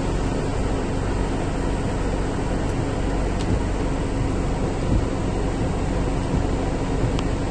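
Heavy rain drumming on a car's roof and windshield, heard from inside the cabin, with the steady low hum of the moving car underneath.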